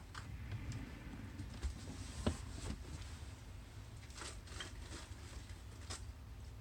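Faint, scattered clicks and knocks of someone searching through a cupboard, the sharpest knock a little over two seconds in, over a low steady hum.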